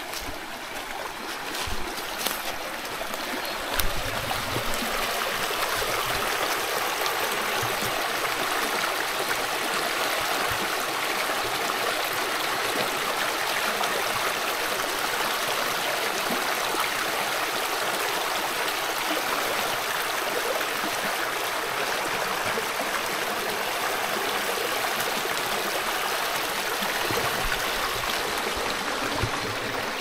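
Small rocky mountain stream running over stones and little rapids, a steady rushing babble that grows louder over the first few seconds as it is approached. A sharp knock about four seconds in.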